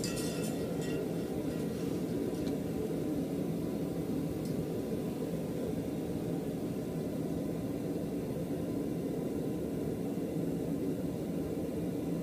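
Steady low rushing noise of a running blower in the forge shop. A few light metal clicks come in the first second.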